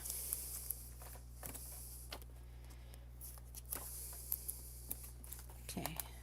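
Faint scattered clicks and light rustling over a steady low hum and hiss.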